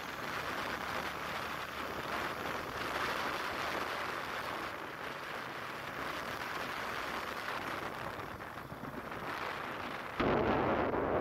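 Steady rushing air and road noise from moving along a city street. About ten seconds in, a louder low rumble of wind buffeting the microphone starts suddenly.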